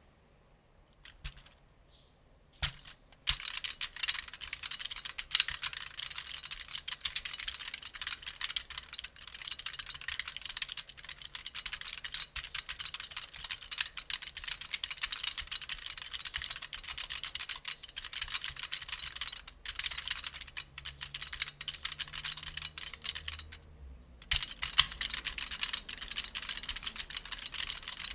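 Smith Corona SL 460 keyboard with leaf-spring key switches being typed on. A few separate key clicks come first, then fast continuous typing a few seconds in, with a brief pause near the end before the typing resumes.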